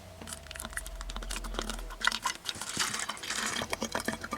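Water being poured into a plastic bottle, with a light hiss and many irregular clicks and crackles from the plastic.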